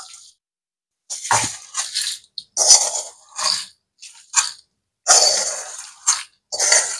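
Dry-roasted curry leaves and spices with salt being transferred into a mixer jar: a run of irregular rustling, scraping bursts.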